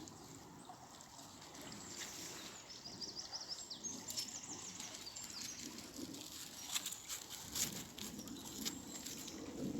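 A small bird sings a quick trill of repeated high notes lasting about a second and a half, a little under three seconds in, over faint outdoor background noise. A few sharp clicks follow later.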